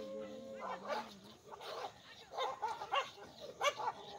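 Several village dogs fighting, snarling and barking in short irregular bursts. A long held whine comes in the first second and a half.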